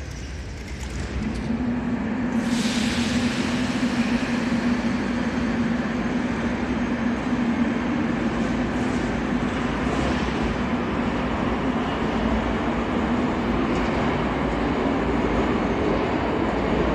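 An 81-717.5M metro train pulling out of the station and running off into the tunnel. A steady hum sets in about a second in, and a loud hiss rises a second later. Dense running noise then builds and stays loud as the cars go by.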